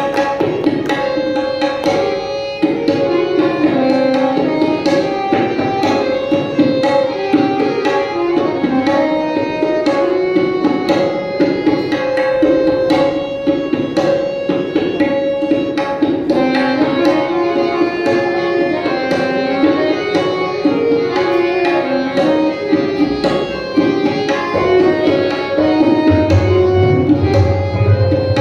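Tabla solo in teentaal, dense strokes on the dayan and bayan, over a harmonium playing the repeating lehra melody. Deeper bayan strokes swell near the end.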